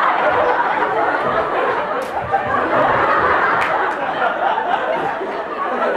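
Audience laughing and chattering: a steady mix of many voices.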